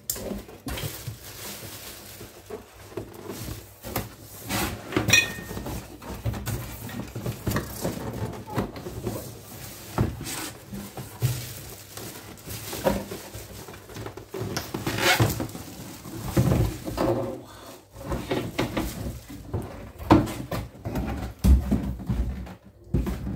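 Irregular rustling of a cardboard box and the clear plastic bag around an air fryer as it is pulled out of the box, with occasional knocks and bumps of the box and appliance.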